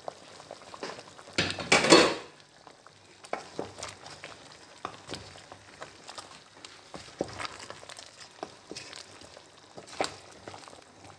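Banga soup simmering in a metal pot of meat and fish, with scattered pops and ticks and a wooden spoon stirring against the pot. There is a louder burst of stirring noise about two seconds in.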